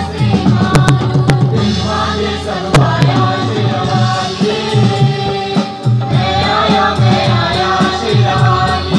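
A group of male voices singing a Hindi song together through a PA, accompanied by a dholak and tabla in a steady rhythm.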